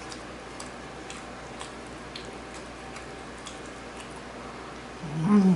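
Faint, irregular small clicks from eating and mouth sounds over a low room hum, then near the end a short, loud hummed 'mmm' of enjoyment from the eater.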